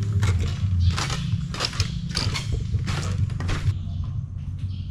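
Footsteps knocking and creaking on a boardwalk, roughly two a second, over a steady low rumble; the steps turn fainter about three-quarters of the way through.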